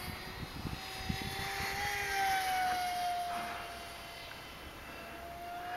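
Electric motor and propeller of a small SkyAngel Bf-109 RC foam warbird whining steadily in flight, its pitch drifting up and down as it passes; loudest about two seconds in, fading, then swelling again near the end. A few low thumps on the microphone in the first second and a half.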